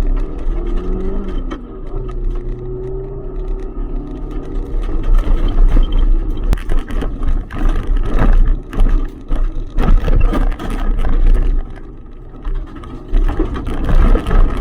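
Hyundai Excel rally car's engine accelerating hard off the start, rising in pitch through the gears. Over it come many sharp knocks and clatters, loudest from about five seconds in.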